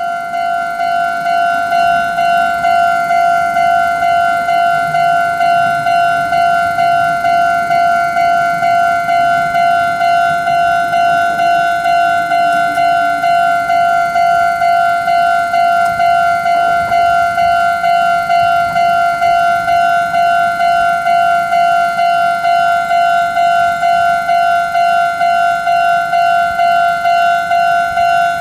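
Japanese level crossing's electronic warning bell ringing its 'kan-kan' alarm: one steady pitched ding repeated in a fast, even rhythm. It is the signal that a train is approaching the crossing.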